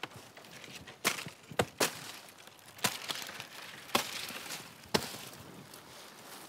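Chopping blows of a hand blade into chestnut stems being cut for basket-making wood. About seven sharp, irregular strikes, roughly one a second, two of them close together near the middle.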